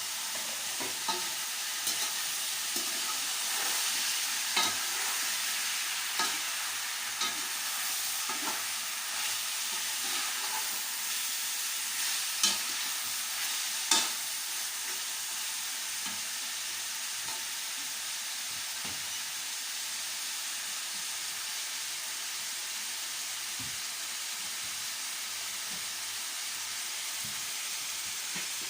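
Chicken pieces frying with onion and garlic in olive oil in a pot, a steady sizzle. A few sharp knocks sound in the first half, the loudest two close together about halfway through.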